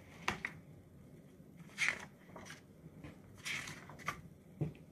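Pages of a hardcover picture book being turned by hand: several brief, soft paper swishes with a couple of light taps.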